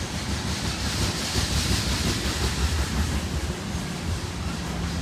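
Loaded coal hopper cars of a freight train rolling on the rails: a steady low rumble with wheel noise, a little louder in the middle. A steady hum comes in near the end.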